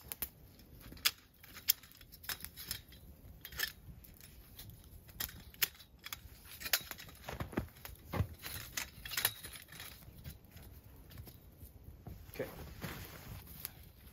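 Irregular sharp clicks, taps and knocks of camp gear being handled as pieces of a campfire cooking tripod are fitted together.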